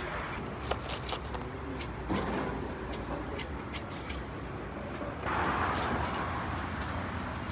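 Street traffic noise with a motor vehicle running, growing louder about five seconds in, with scattered light clicks.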